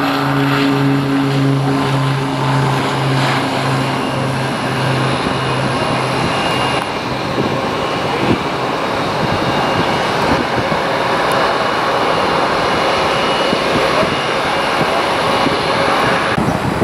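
Aircraft passing close by, its engines loud and steady, with a throbbing low hum over the first six seconds or so. The sound drops off suddenly near the end.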